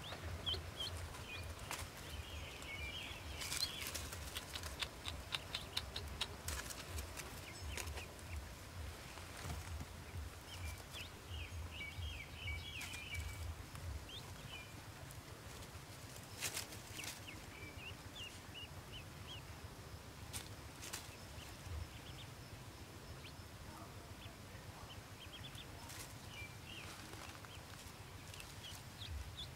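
Newly hatched Pekin ducklings peeping in short high-pitched clusters several times, with scattered clicks and rustling from the straw nest being handled.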